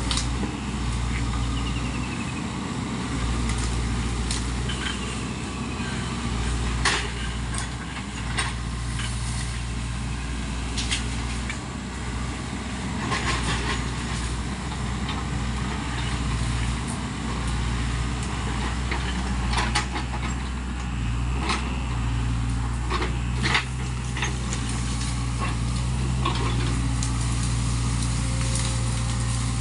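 SANY mini excavator's diesel engine running steadily under work, with irregular sharp cracks and knocks as the machine pushes through and breaks bamboo and brush.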